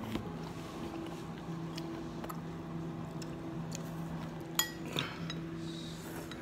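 Chopsticks and a spoon knocking lightly against a ceramic soup bowl: a few soft clinks, with a sharper, ringing clink a little past halfway and another just after it.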